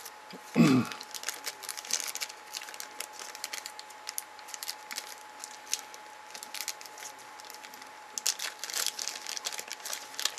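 A small clear plastic packet of hookup wire crinkling as it is handled, in scattered clusters of crackles. A brief louder sound comes just after the start, and a faint steady tone runs underneath.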